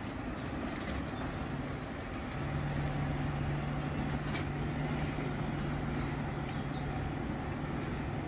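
A car engine running steadily, a low even hum that comes in louder about two seconds in, over street noise.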